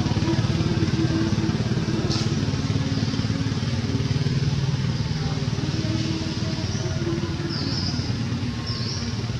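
A small engine running steadily, with a rapid low pulsing drone like a motorbike idling or passing at a constant speed.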